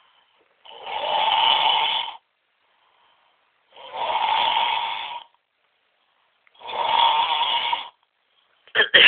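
Loud snoring: three long snores of about a second and a half each, with silent pauses between them. Just before the end comes a sudden loud, sharp sound.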